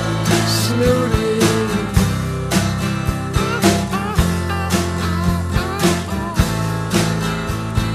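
A song's instrumental passage with guitar over a steady beat.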